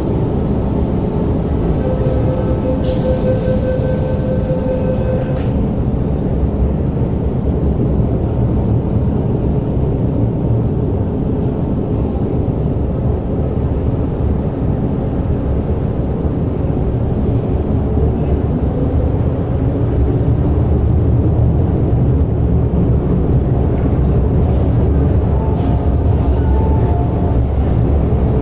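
MTR Tsuen Wan Line metro train standing at the platform and then pulling away. Its low rumble grows louder over the last several seconds as it picks up speed. A brief hiss with a steady tone comes about three seconds in.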